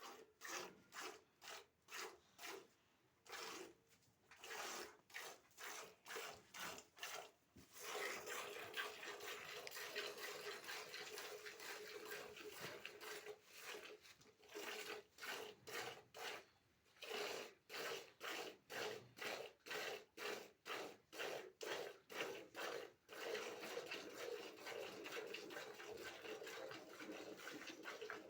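Hand-milking a buffalo: jets of milk squirting into a pail in rhythmic hissing strokes, about two a second. Twice the strokes speed up and run together into a near-continuous streaming hiss.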